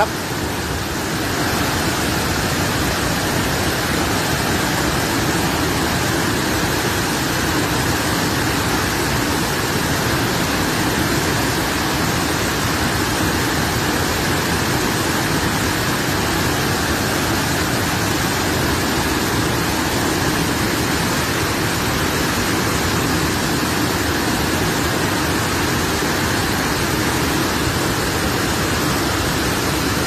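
Muddy flash-flood water rushing down a waterfall in spate. It is a loud, steady, unbroken noise of fast, churning water.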